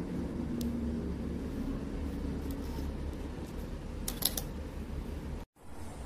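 Steady low background rumble with a couple of light clicks as small USB 3.0 female-to-female adapters are handled between the fingers. The sound drops out completely for a moment near the end.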